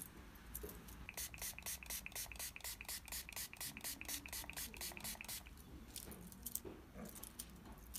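Quick, even rubbing strokes close to the ear during traditional Chinese ear cleaning, about six a second for some four seconds. A few looser strokes follow near the end.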